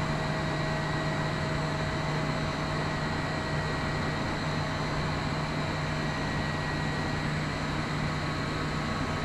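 Steady drone of plant-room machinery (pumps, air-handling equipment and pipework) running continuously, with a low hum and a few faint steady whine tones above it. The room is too noisy to be comfortable.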